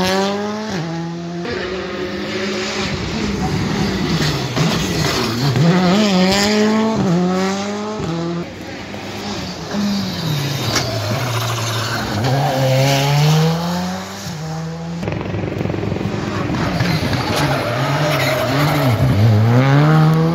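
Rally cars' engines revving hard through a hairpin: the pitch climbs through the gears and drops again on each lift and shift, several times over. Several cars are heard in turn, with abrupt changes between them.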